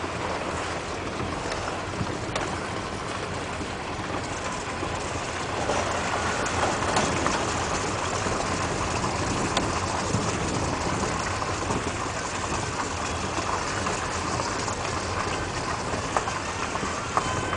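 Steady engine and road noise from inside a moving vehicle, with a few faint clicks and rattles.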